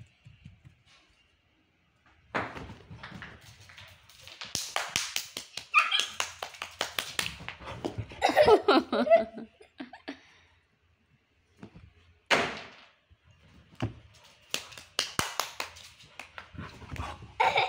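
A village dog scuffling about during play, with runs of quick scratching and rustling sounds and a short whine near the middle.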